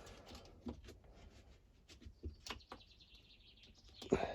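Faint scattered clicks and taps of small hedge-trimmer parts being handled while a trigger cable is fitted. A thin, high, steady tone comes in about halfway through and lasts under two seconds.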